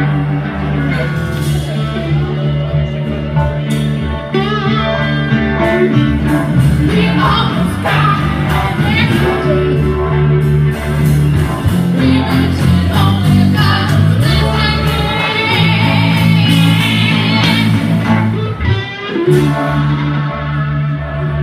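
Live rock-blues band playing an instrumental break: a wavering lead electric guitar line over drums and strummed acoustic guitar.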